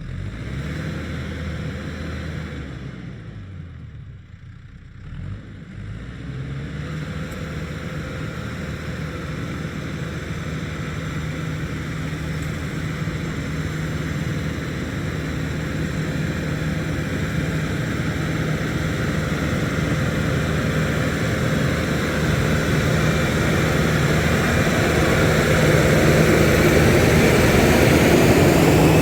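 Tractor engine running steadily. It drops back a few seconds in, picks up again about six seconds in, then grows steadily louder.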